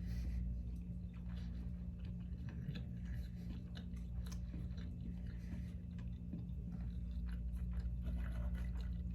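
Close-up chewing of a sushi roll coated in crushed Flamin' Hot Cheetos, with scattered small clicks and crunches, over a steady low hum.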